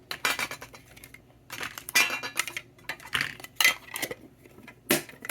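Metal Pokémon collector's tin being handled: irregular clusters of clinks and rattles of metal on metal, about five bursts, the tin and its loose contents knocking together.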